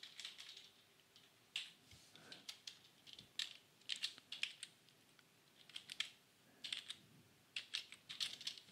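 Computer keyboard typing, faint, in short irregular bursts of key clicks with pauses between.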